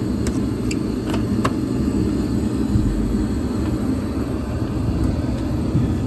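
Steady low rumble of a running York gas package unit. A few sharp metal clicks come in the first second and a half as the access panel's T-handle latch is worked.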